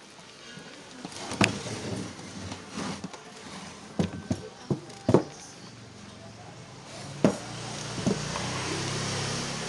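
Handling noise from working on an opened portable active speaker: a series of sharp clicks and knocks, the loudest about five seconds in. From about seven seconds in a steady rushing noise rises and holds.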